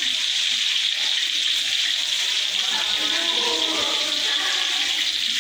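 Steady hiss and bubbling from the stove: tofu frying in oil in a wok and a large pot of corn soup at a rolling boil.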